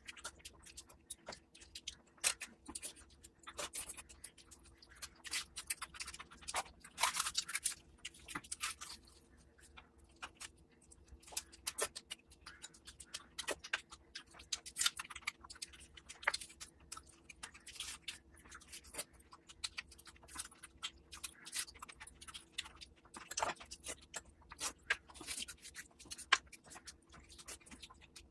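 Close-miked eating sounds: a person chewing and handling luchi and mutton curry, giving irregular clicks and crackles, with a longer crackling stretch about seven seconds in. A faint steady hum runs underneath.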